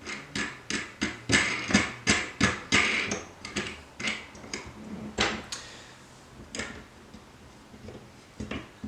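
Quick knocks and clicks of loom frame pieces, bolts and washers being handled and fitted together as the loom is bolted up. They come about three a second for the first five seconds, then only a few scattered knocks.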